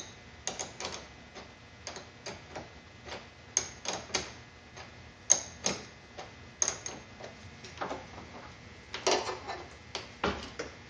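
Ratchet wrench clicking in short strokes at uneven intervals, some clicks in quick pairs, as a car battery terminal is loosened.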